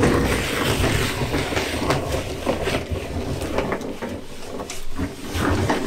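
Plastic sheeting and foil tape crinkling and rustling as they are pulled off the countertop edge and bundled into a plastic trash bag, a dense, continuous crackle.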